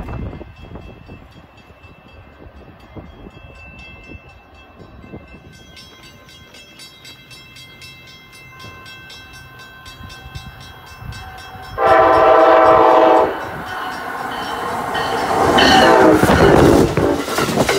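Amtrak ACS-64 electric locomotive sounding its horn: one long blast about twelve seconds in, then more horn as the train rushes past close by, with loud rising wheel and rail noise. Before that, faint rail noise with thin steady high tones.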